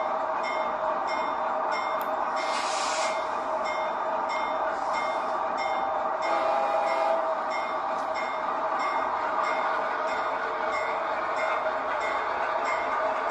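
Diesel locomotive running while its bell rings steadily, about two strokes a second. A short hiss comes about two seconds in.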